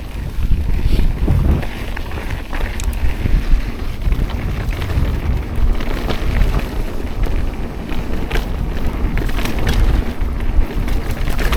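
Wind buffeting the action-camera microphone over a steady low rumble, with scattered clicks and rattles from a Yeti SB130 mountain bike being ridden.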